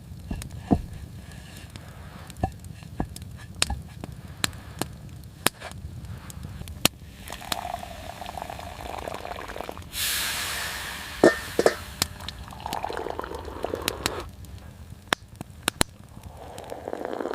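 Wood fire crackling, with irregular sharp pops over a low rumble, and a burst of hissing about ten seconds in.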